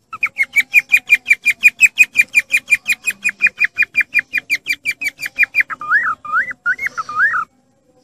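Cockatiel calling with a fast, even run of short whistled chirps, about seven a second, then four longer whistles that rise and fall near the end.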